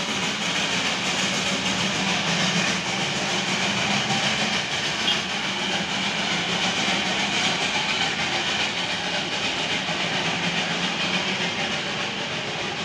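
Darjeeling Himalayan Railway narrow-gauge steam locomotive and its coaches passing: a steady hiss of steam with the rolling of the train on the rails. The lower rumble fades after about five seconds as the train draws away.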